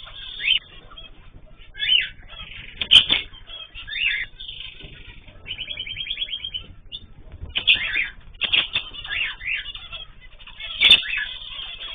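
Small cage birds, a mix of cockatiels, zebra finches and canaries, chirping and calling with short rising chirps and a quick trill in the middle, over the flutter of wings, with two sharper bursts about 3 seconds in and near the end.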